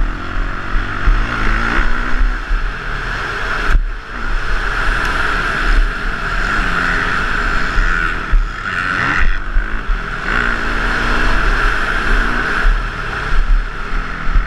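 Motocross bike engine heard from the rider's helmet, revs rising and falling as the throttle is worked, with two short breaks in the sound.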